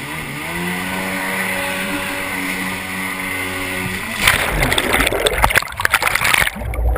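1991 Kawasaki JS440 stand-up jet ski's small two-stroke twin engine revving, its pitch climbing in the first second and then holding steady. About four seconds in the engine note gives way to loud, irregular splashing and rushing water.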